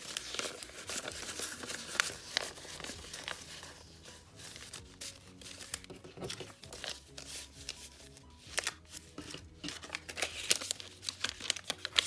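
Paper banknotes rustling and crinkling as a stack of dollar bills is handled and flipped to face the same way, with many short rustles throughout.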